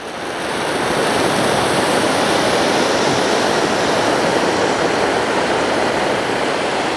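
King-size matka anar ground fountain firework spraying sparks with a steady, loud rushing hiss that builds up over the first second.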